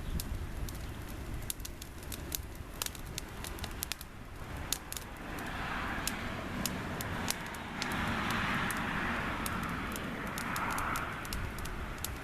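Burning pile of paper, twigs and leaves crackling with many sharp pops. From about halfway through, a rushing hiss swells up and fades three times over a low rumble.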